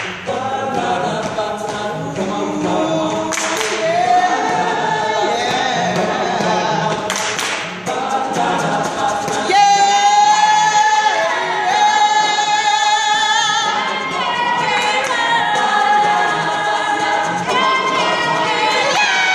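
Mixed-voice college a cappella group singing a rock cover, several parts at once with a few sharp percussive hits in the first half. From about ten seconds in the voices hold sustained chords with vibrato.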